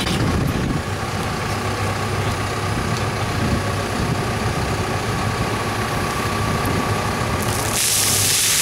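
Caterpillar backhoe loader's diesel engine idling steadily, with a thin steady whine over it. Near the end, a bucketful of water dumps from the raised loader bucket, a loud rushing splash onto a person and the pavement.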